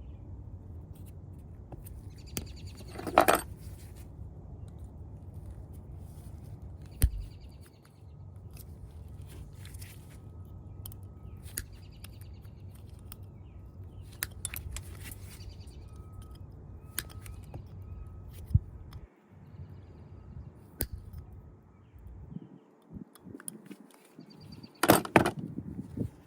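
Hand work on a truck's clearance-light housing: scattered clicks and knocks, with two louder rattling bursts about three seconds in and near the end, over a steady low rumble.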